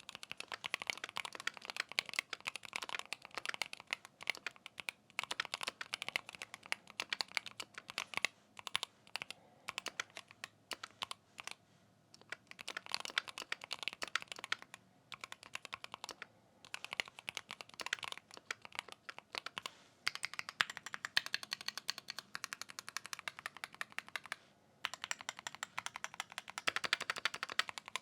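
Typing on a Keychron Q1 HE keyboard with Gateron magnetic switches in a fully aluminium, gasket-mounted case: a fast, continuous run of keystroke clacks broken by a few short pauses.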